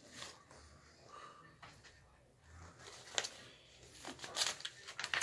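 Faint handling noise from a picture book: soft paper rustles and a few light clicks, the sharpest about three seconds in.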